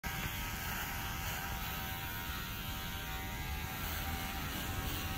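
A steady hum.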